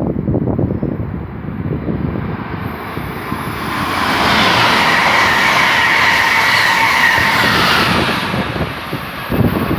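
Wind buffeting the microphone, then from about four seconds in a passenger train passes at speed, a loud steady hiss of wheels on rail that lasts about four seconds and then sinks back under the wind gusts.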